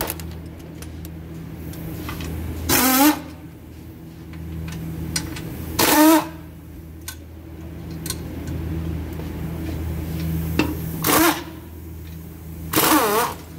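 Pneumatic impact wrench run in four short bursts, each about half a second with a wavering pitch, spinning out bolts. A steady low hum runs underneath.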